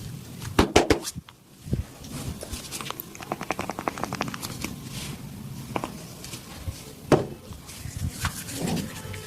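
Hands-on percussive massage: a few sharp slaps or cracks, with a quick run of rapid taps in the middle and another sharp strike near the end.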